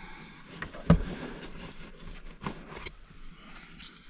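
Handling noise while rummaging through a backpack: rustling and small clicks, with a sharp knock about a second in and a lighter one about two and a half seconds in.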